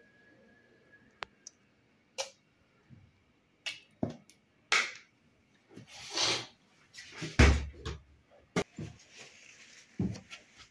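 Ketchup squeeze bottle squirting onto a flour tortilla in several short noisy spurts, with clicks and a dull thump from handling the bottle about halfway through.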